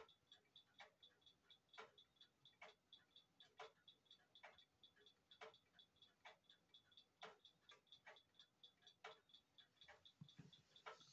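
Pfeilkreuz flip-number desk clock ticking faintly and steadily: rapid light ticks, several a second, with a louder click about once a second.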